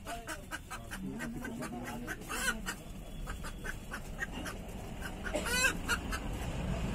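Chickens clucking, with two louder calls about two and a half and five and a half seconds in.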